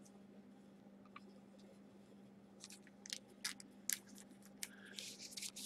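Trading cards and plastic being handled: a run of light crinkling clicks and a short rustle, starting about two and a half seconds in, over a faint steady low hum.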